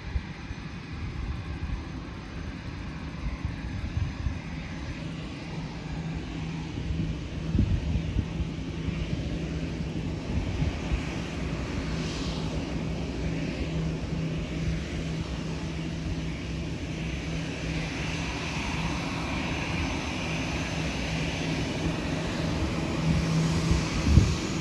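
Jet engines of a Volotea Airbus airliner at idle thrust while it taxis close by: a steady hum with a higher whine that grows louder in the last few seconds as the jet turns toward and passes the microphone. Wind rumbles on the microphone throughout.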